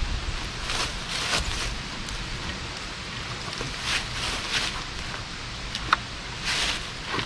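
Split firewood being handled and set onto a stack: several brief scraping, rustling bursts of wood and bark, with a sharp wooden knock about six seconds in.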